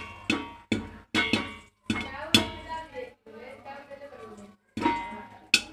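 Popcorn kernels popping in a metal pan on a gas burner: about eight sharp pops at irregular intervals, each ringing briefly off the metal.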